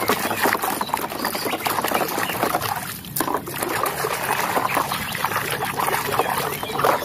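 Water splashing and trickling as a muddy toy is washed by hand, with many small irregular splashes and knocks.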